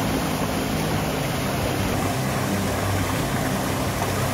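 Small waterfall cascading over boulders: a steady, loud rush of falling and splashing water.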